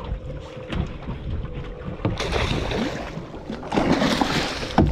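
Kingfish thrashing and splashing at the water's surface against the boat's hull as it is gaffed, in two loud bursts of splashing, one about two seconds in and another near the end, over wind and a low rumble.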